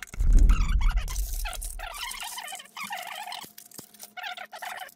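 Crumbs of shattered tempered glass clinking and scraping as gloved hands brush them out of an LED floodlight's frame, heaviest in the first two seconds with low handling thumps of the housing, then sparser small clicks.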